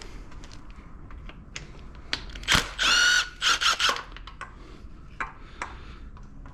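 Hand tools working on an engine during teardown: scattered sharp metal clicks and clinks, with a short, loud, high squeal about three seconds in, surrounded by a few heavier knocks.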